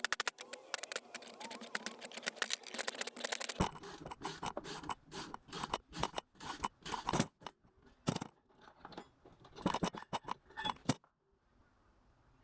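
Hand tools scraping and clicking against the metal parts of a car driveshaft in quick, irregular strokes. The background changes abruptly about a third of the way in. After that come sparser separate clicks and scrapes, which die away near the end.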